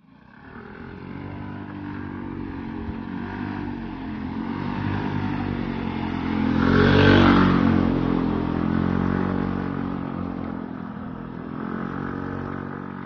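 Small motor scooter engine running uphill, growing louder as it approaches, loudest as it passes about seven seconds in, then fading away.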